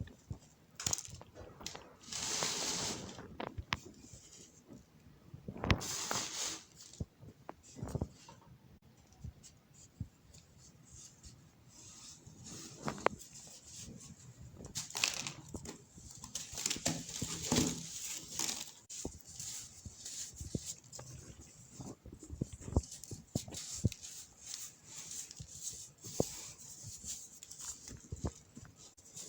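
Pressed baking soda chunks being crushed and crumbled into powder: an irregular run of crisp crunches and fine crackles, with a few louder crumbling bursts.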